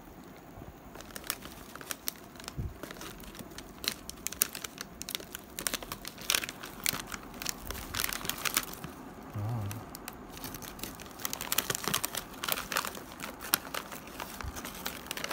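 Plastic cookie pouch and its plastic wrapping crinkling and crackling as they are handled and torn open. The crackles come irregularly and are thickest a few seconds in and again near the end.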